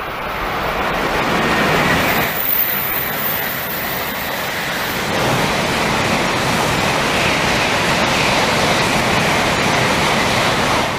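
Shinkansen bullet train passing close at high speed: a loud, steady rushing noise of wheels on rail and air. It eases briefly about two seconds in, then builds again.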